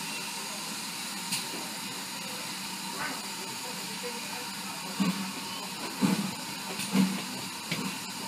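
Steady hiss of steam escaping beside a slowly moving steam-hauled train, with a few short, louder low bursts about five to seven seconds in.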